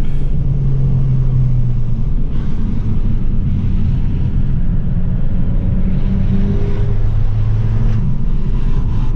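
Abarth 695 70° Anniversario's 1.4-litre turbocharged four-cylinder engine pulling at cruising speed, heard from inside the cabin over road noise. The engine note drops to a lower pitch about two seconds in as the car slows, then holds steady.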